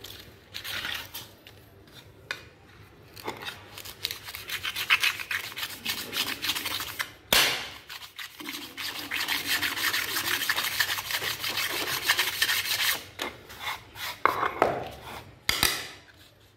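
Gritty scraping of a perforated board rubbed by hand over moulding sand in a small sand-casting flask. Short strokes come first, then a steadier stretch of rubbing in the middle, with a sharp tap about seven seconds in and another near the end.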